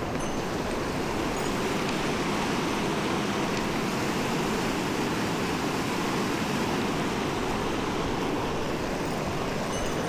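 Clear mountain stream rushing: a steady, even rush of flowing water.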